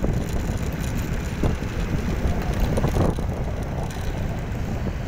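Wind buffeting the microphone with a steady low rumble from riding a rough dirt trail.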